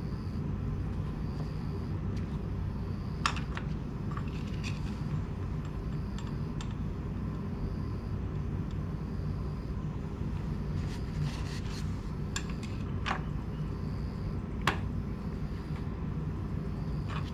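Scattered sharp clicks and taps of a motorcycle oil dipstick being pulled out, wiped with a paper shop towel and pushed back in for a cold oil-level check, over a steady low hum. The loudest clicks come about three seconds in and near the end.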